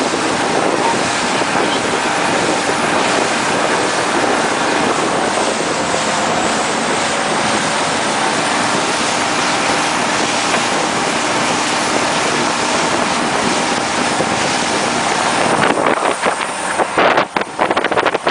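Strong wind rushing over the microphone, with a speedboat's engine running steadily underneath, as during a parasail tow. Near the end the wind turns gusty and buffets the microphone unevenly.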